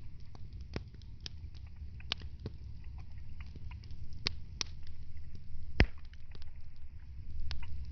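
Wood fire crackling in a fireplace: irregular sharp pops and snaps over a low steady rumble, with a louder pop about six seconds in.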